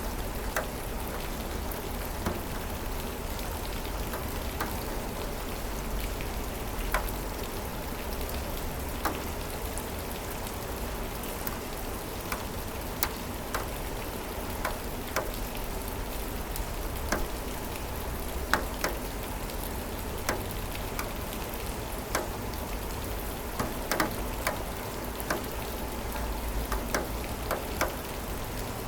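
Steady rain falling, with individual drops striking close by as sharp, scattered clicks every second or so, over a low rumble.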